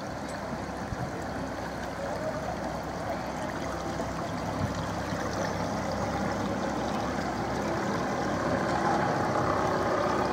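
Canal cruiser's engine running at low speed with water washing along the hull, as a steady noise that grows gradually louder.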